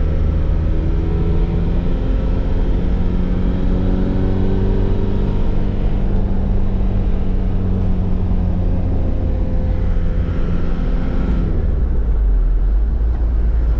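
Motorhome driving at highway speed: a steady engine hum over continuous road rumble. Near the end the engine note drops away, leaving a deep low rumble.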